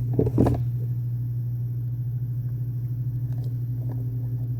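Two quick sharp clacks from a Nerf blaster being primed or fired, close together, over a steady low hum, with a few faint ticks later.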